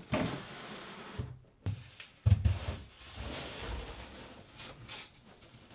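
A fridge box being slid into a wooden cabinet and onto its shelf: scraping and rubbing, a couple of knocks, and a heavier thump a little over two seconds in as it settles.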